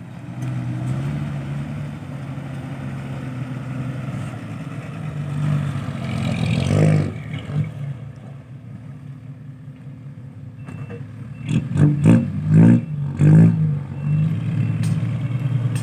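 Dump truck's engine running steadily. It swells about six seconds in, and several short loud bursts follow between about twelve and thirteen and a half seconds.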